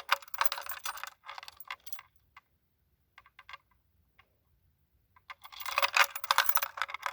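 Small metal chain of a chain burglar alarm clinking and rattling as it is handled: a burst of clatter in the first two seconds, a few scattered clicks, then another burst about five seconds in.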